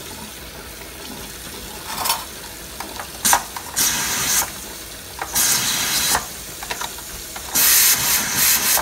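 Tap water pouring over a pressure cooker's lid in a steel sink, with repeated loud hisses of steam escaping from the vent as the cooling lets the pressure out; the longest hiss comes near the end.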